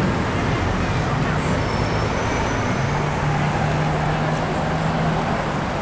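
A city bus's engine running as the bus moves off, over steady street traffic noise. A low steady engine drone drops away about half a second in and comes back around three seconds in.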